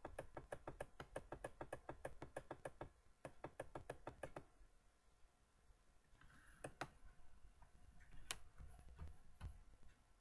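A quick run of computer clicks, about seven a second at first, thinning out and ending in a few single clicks, as a copied line of text is pasted over and over.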